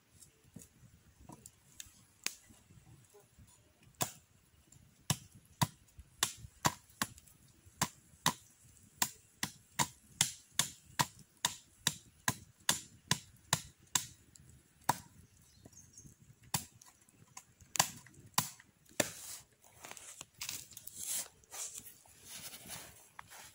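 Machete blade chopping a thin wooden stick held on a log: a run of sharp, separate knocks, about two a second for several seconds, then slower strikes with some scraping near the end as the stick is trimmed.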